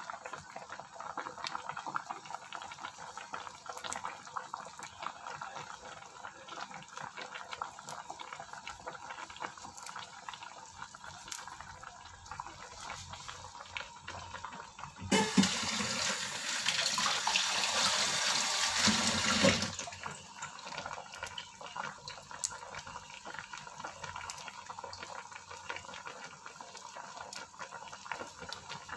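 Fish soup at a rolling boil in a pan, bubbling and popping steadily. About halfway through, a louder rushing hiss takes over for about five seconds, then the bubbling goes on alone.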